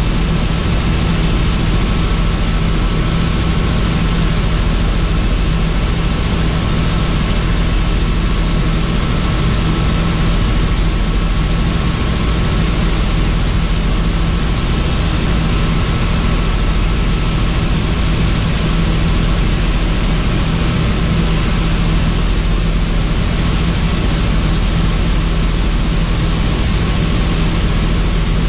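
Helicopter in flight: steady rotor and engine noise, with a faint high whine held through it.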